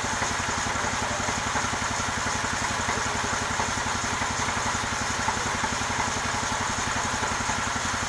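A sawmill's engine idling steadily, with an even, rapid firing pulse and no change in speed, while the machine is under test.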